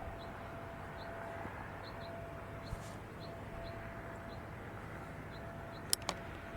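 Quiet outdoor background with a small bird chirping faintly about twice a second, a faint steady tone in the background, and two sharp clicks near the end.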